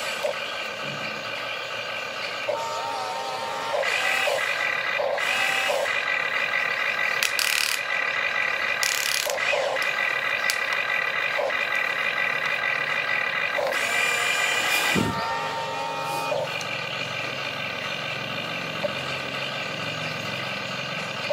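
Huina remote-control excavator working its boom, arm and bucket: a steady electric motor whine that gets louder about four seconds in and eases off near fifteen seconds, with brief pitch glides and several short loud bursts as the movements change.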